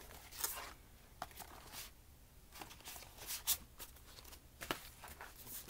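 Rustling and a few light clicks of school folders being handled and held up.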